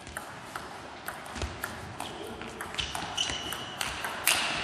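Celluloid table tennis ball clicking back and forth off the players' bats and the table in a fast rally, a few clicks a second. A louder burst of noise comes near the end.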